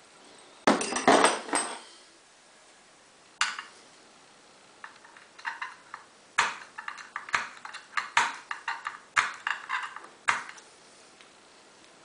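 Steel picking tools clicking and clinking against an Auno 6+6 lever lock's steel case and parts. A quick cluster of clicks comes about a second in, a single click at about three and a half seconds, then a string of sharp metallic clicks and pings with a brief ring from about five to ten seconds.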